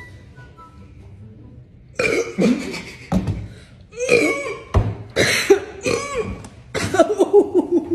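A person coughing and spluttering in a run of short, harsh bursts that starts about two seconds in, the kind of fit that follows chugging a drink too fast.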